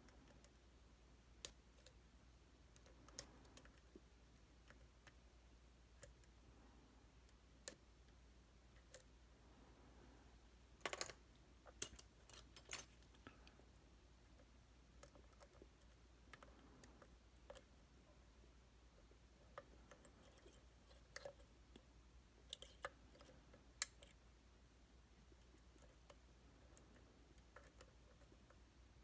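Faint, scattered clicks and small metallic ticks from a lock pick and tension tool working the sliders of a Titan T250 dimple lock, with clusters of sharper clicks about eleven seconds in and again near twenty-three seconds.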